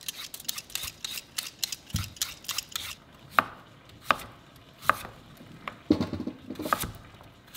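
Chef's knife cutting raw sweet potatoes against a cutting board. A quick run of light clicks comes first, then single firm cuts about one every three-quarters of a second.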